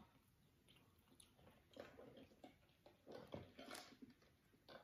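Near silence with faint eating and drinking mouth sounds: small chewing clicks, then a sip through a straw from a paper soft-drink cup in the second half.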